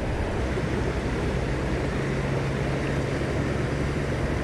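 Steady rush of water pouring over a creek spillway.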